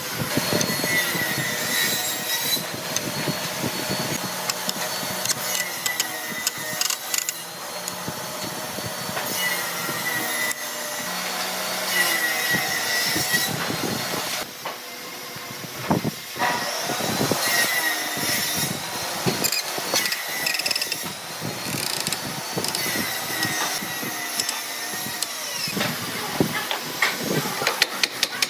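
Wooden rail being screwed by hand onto a double-ended wood screw in a chair-frame joint: repeated squeaks every few seconds as the wood turns on the screw, with knocks and handling clatter.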